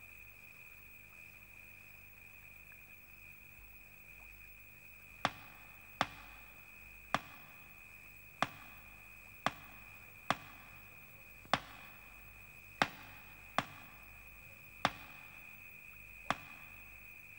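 Crickets trilling steadily, with about eleven sharp taps at uneven intervals starting about five seconds in: a shoe tapping on a hard floor, typical of someone waiting impatiently.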